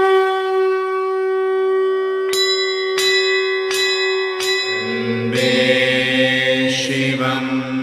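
A conch shell blown in one long steady note for about four and a half seconds, joined a little over two seconds in by four strikes of a temple bell. About halfway through, a deep droning chant sets in.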